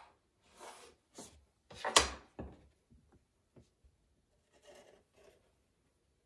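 Handling noises at a work table while clay is being hand-built: a few short scrapes and knocks, the loudest about two seconds in.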